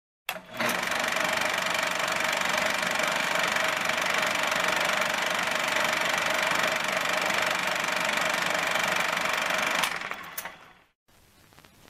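Film projector running: a steady mechanical clatter with a whirring hum that dies away about ten seconds in.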